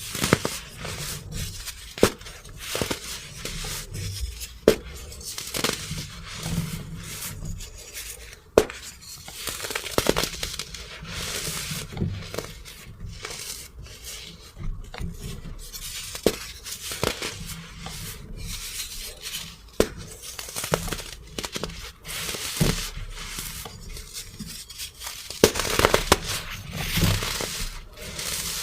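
Compressed baking soda being crushed and crumbled, crunching and crackling steadily, with a sharp snap every one to three seconds as pieces break.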